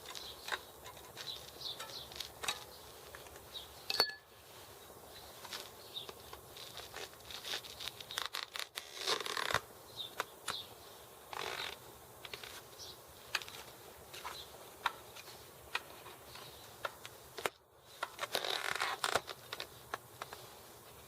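Screwdrivers used as tire levers prying an old, rotten tire off a bicycle wheel rim: scattered clicks and scrapes of metal on the rim, one sharp metallic ting about four seconds in, and stretches of rubber rubbing against the rim.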